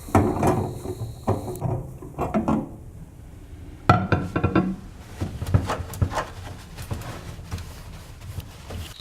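Irregular knocks and clatter of things being handled in and around a microwave, with sharp strokes about a second in and about four seconds in, then lighter taps and rubbing.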